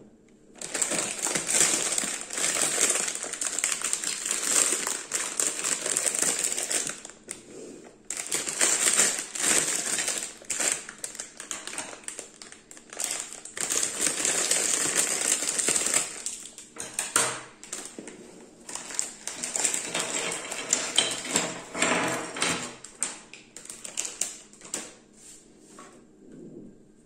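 Clear plastic bags of LEGO Duplo bricks crinkling as they are handled and cut open with scissors, with hard plastic bricks clacking as they spill onto the table. The crinkling comes in three long stretches and dies away near the end.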